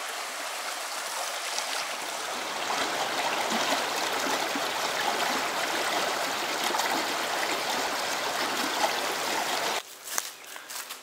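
Fast-flowing stream water running in a steady rush. It stops suddenly about ten seconds in, giving way to a quieter background with a few soft clicks.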